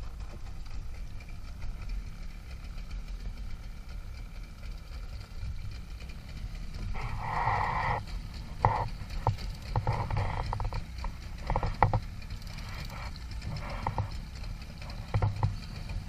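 A steady low rumble of wind and sea on a small boat. From about seven seconds in come irregular knocks and clatters from the fishing gear or the hull.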